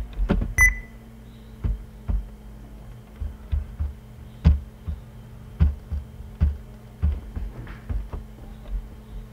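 Scattered computer mouse clicks picked up by the microphone, sharp taps with a low thump about once a second at uneven spacing, over a steady low electrical hum. A brief high beep sounds about half a second in.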